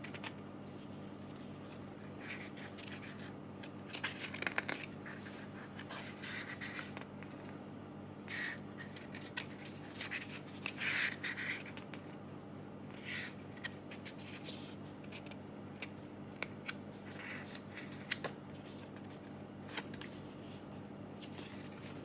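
Pages of a small paper photobook being turned and handled: irregular soft rustles and scrapes of paper, over a steady low hum.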